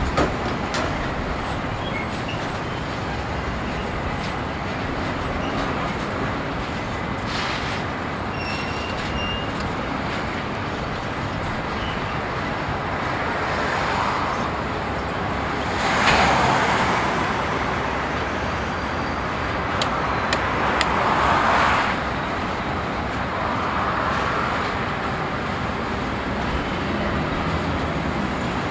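Steady road traffic noise with vehicles passing one after another; one passes loudest about halfway through and another a few seconds later.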